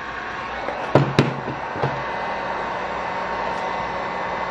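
Handheld electric heat gun running, a steady blowing hiss, while a few sharp knocks from handling the wire and terminal come about a second in.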